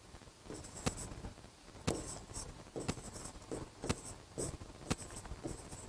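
Handwriting: scratchy writing strokes with a sharp tap roughly once a second.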